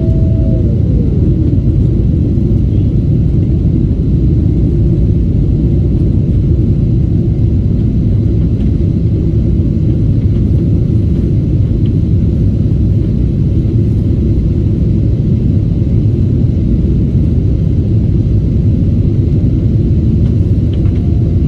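Steady, loud, low rumble of a Boeing 777-200ER's jet engines and rushing air, heard from inside the economy cabin during the climb after takeoff.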